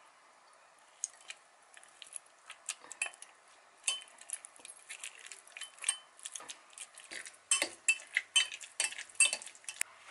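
Metal wire potato masher mashing avocado and boiled egg in a glass Pyrex jug, with a run of irregular clinks and taps of metal on glass that begin about a second in and grow louder and quicker toward the end.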